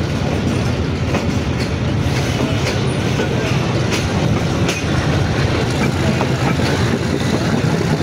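Passenger train running on the rails, heard from the first coach behind the diesel locomotive: a steady rumble with the engine's low drone and the clicks of wheels over rail joints as the train gathers speed.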